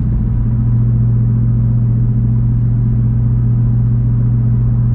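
Steady low exhaust drone heard inside the cabin of a 2022 Camaro ZL1, its supercharged 6.2 L V8 cruising at highway speed through an MRT H-pipe catback exhaust, with road noise underneath. The drone holds one even pitch and is mild, which the driver credits to the H-pipe.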